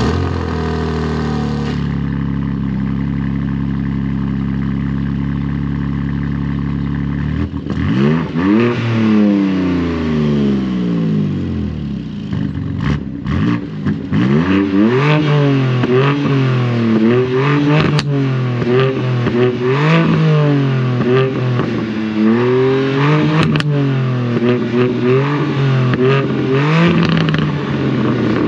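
BMW G87 M2's S58 twin-turbo straight-six, heard through an Eisenmann twin-flow cat-back exhaust. It idles steadily for several seconds, then is free-revved over and over, the pitch rising and falling about every two seconds, with a few sharp pops on the overrun.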